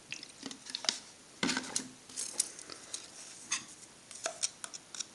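Irregular light clicks and scrapes of a plastic bottle and a small metal spatula against a small plastic pot, as isopropanol is shaken in and stirred into Solar Flux powder to make a paste.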